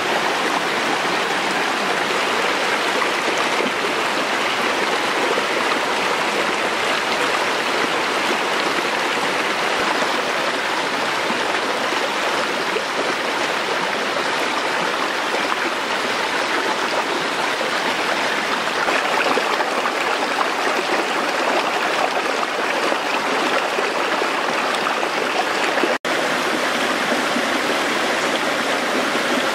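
Shallow rocky stream rushing steadily over stones and a small cascade, with one momentary break in the sound near the end.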